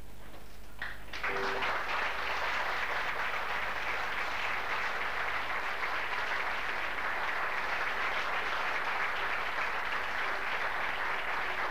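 Audience applauding, the clapping breaking out about a second in and then continuing steadily.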